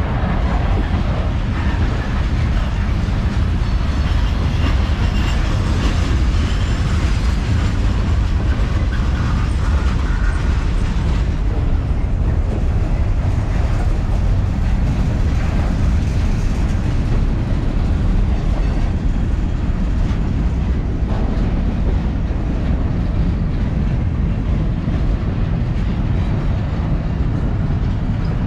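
Long Norfolk Southern manifest freight train rolling past: a loud, steady, unbroken rumble of the freight cars on the rails.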